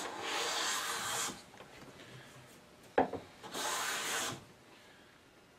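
Krenov-style wooden hand plane taking two strokes along a board, each shaving cut lasting about a second, with a sharp wooden knock between them. The blade has just been set to take a fine smoothing shaving.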